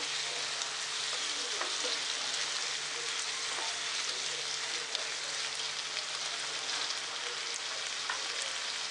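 Onion, tomato and whole-spice masala sizzling steadily in oil in a nonstick pan, with a wooden spatula stirring and scraping through it now and then.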